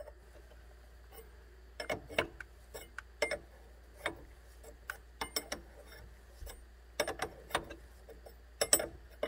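Metal clicks and clinks of a 17 mm wrench turning the forcing screw of a double flaring tool, forming a flare in a nickel-copper brake line. The clicks come irregularly, in small clusters a second or so apart.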